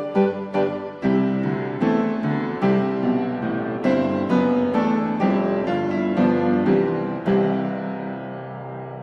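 Background piano music: quick struck notes, then slower chords, ending on a held chord that fades away.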